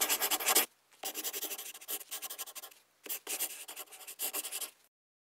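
Rapid scratching strokes, like writing or scribbling, in three bursts about a second or two long. They stop abruptly about a second before the end.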